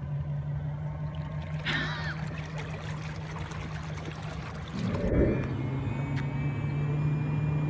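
Water trickling and lapping around a small inflatable boat whose electric outboard runs almost silently, over a steady low hum. A brief low rumble comes about five seconds in.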